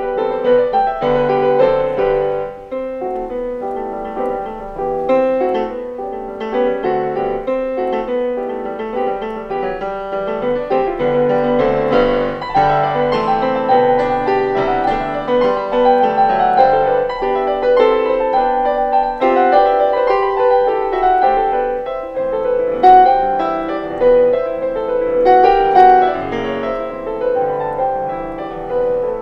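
Piano music: a steady stream of quick notes.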